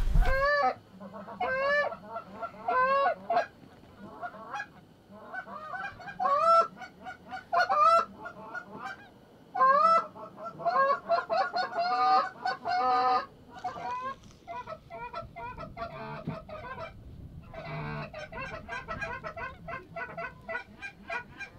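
A flock of Canada geese honking: many short, overlapping honks in quick series. They are loudest through the first half, then thin to softer, continuous calling after a short pause.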